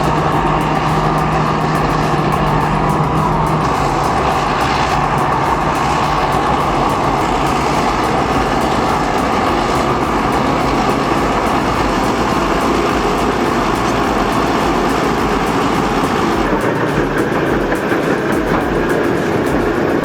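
Diesel engines of heavy earthmoving machinery, Caterpillar D8 crawler dozers working with a towed scraper, running steadily under load, with a steady low hum for the first few seconds.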